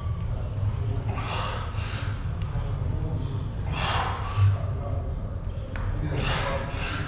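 A person's three forceful, noisy breaths, about every two and a half seconds, over a steady low hum.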